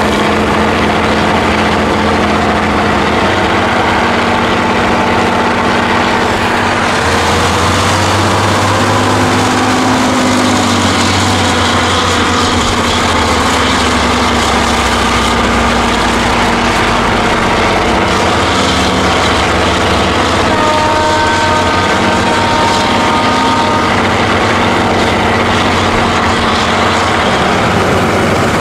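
Heavy off-road trial trucks' diesel engines running and revving hard as they churn through mud, their pitch rising and falling. About two-thirds of the way through, a steady high tone sounds for about three seconds.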